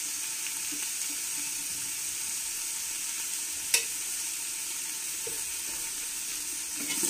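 Beef keema sizzling steadily in freshly added hot cooking oil in a pot, with one sharp click a little past halfway.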